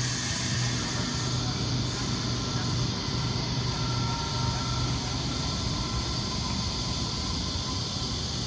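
Waratah electric suburban train pulling out of the station: a steady rushing running noise with a low hum underneath and faint higher whines.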